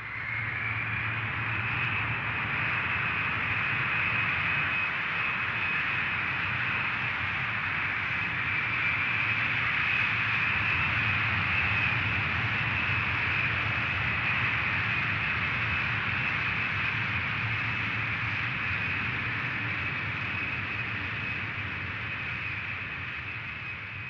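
Jet engines of a taxiing three-engined Tupolev Tu-154 airliner: a steady high whine that rises slightly in pitch at the start, over a low rumble, fading away near the end.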